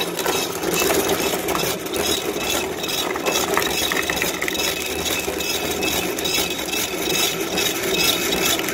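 Homemade plastic shredder, a 2-horsepower electric motor driving the cutter blades through a 25-to-1 reduction gearbox, running and chewing up plastic. A steady motor hum sits under constant crackling and rattling as the plastic is cut.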